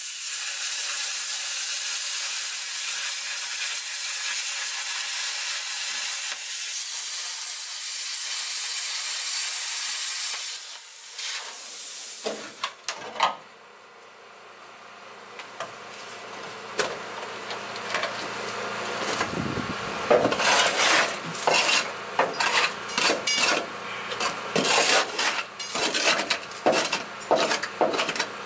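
Plasma cutter's arc hissing steadily as it cuts through rusted body steel of a 1964 Toyota Land Cruiser FJ40, stopping abruptly about eleven seconds in. After a short lull, a long run of sharp, irregular metallic clicks and clatters as the cut-out section is worked loose.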